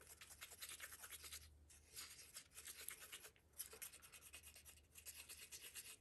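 Faint scraping of a wooden popsicle stick stirring white mica-tinted epoxy resin in a small plastic cup, in rapid strokes with a few short pauses.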